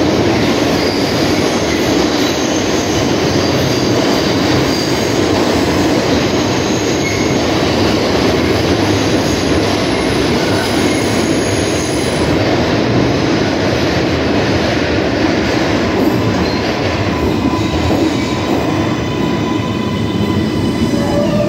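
R142-series New York City Subway train running through the station at close range: a loud, steady rumble of steel wheels on rail, with faint high wheel squeal in the first half. Towards the end the whine of the train's electric traction motors comes in, shifting in pitch.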